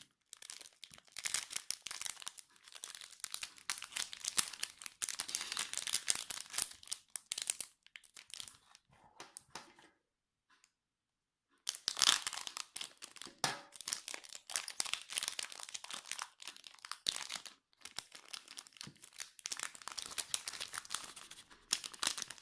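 Foil booster-pack wrapper crinkling and tearing as a pack of trading cards is opened by hand. The crackling stops for a second or two just before the middle, then carries on.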